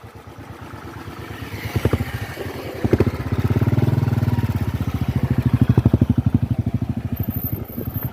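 Motorcycle engine running at low revs with an even, rapid beat of firing pulses, growing louder about two seconds in and staying strong from about three seconds on.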